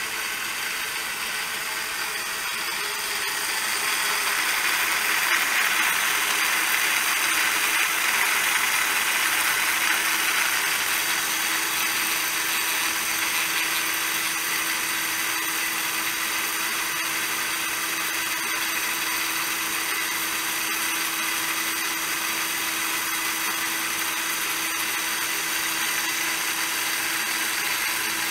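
Small electric motor-driven cutter on a rose engine lathe running steadily with a constant hum, the sound swelling for several seconds from about three seconds in as it cuts a facet into a blackwood box, then settling to a steady run.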